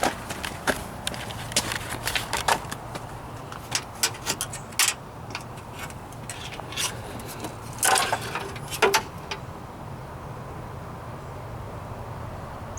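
Irregular metallic clicks and rattles from a throttle cable's ends being handled and checked, over a steady low hum.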